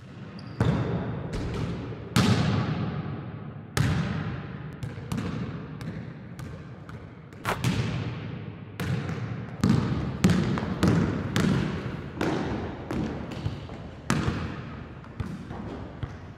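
Basketball bouncing on a hardwood gym floor: a string of irregularly spaced thuds, each followed by a long echo in the hall.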